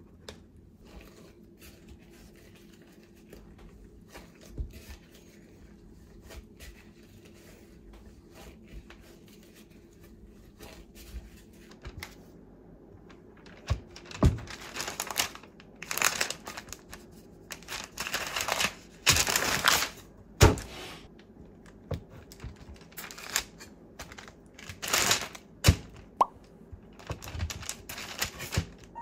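Hands working sticky bread dough, faint and scattered at first; then, about halfway through, a metal bench scraper cutting the dough on a wooden board lined with baking paper, with a run of sharp scrapes, knocks and paper crinkles.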